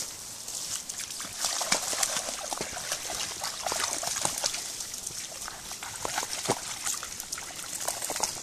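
A Jack Russell terrier wading and splashing through a shallow creek, water sloshing and trickling around its legs in many small splashes.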